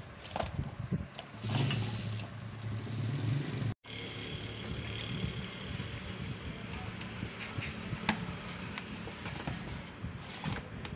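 A steady low engine-like hum, loudest in the first few seconds, cuts out abruptly about four seconds in and then carries on more quietly. Over it come a few sharp plastic clicks as a two-pin plug and a small socket box are handled.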